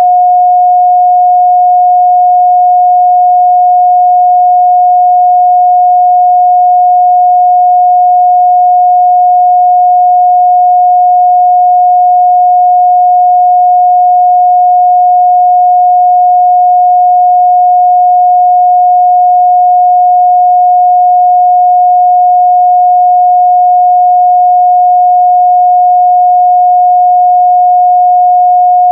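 A steady, loud 721 Hz sine-wave test tone, a single pure pitch held without change.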